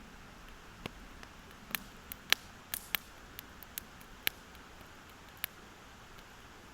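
Wood campfire crackling: sharp, irregular pops and snaps, about ten of them, over a faint steady hiss.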